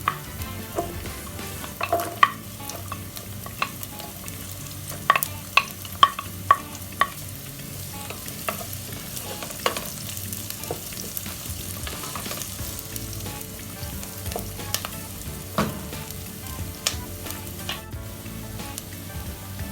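Garlic and onion sautéing in hot oil in a pan, a steady sizzle, while a stirring utensil scrapes and knocks against the pan. There is a quick run of sharp taps about five to seven seconds in.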